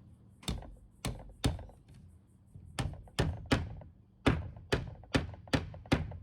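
Eleven sharp knocks in three uneven groups of three, three and five, each dying away quickly.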